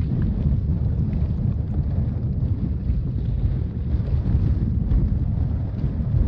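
Wind buffeting the microphone: a steady, gusting low rumble with no engine tone in it.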